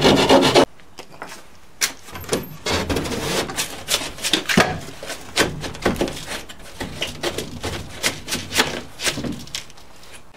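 A wooden box being forced into a tight hole cut in sheetrock: a short burst of rasping at the start, then a long run of irregular knocks, taps and scrapes of wood against the drywall as it is worked in.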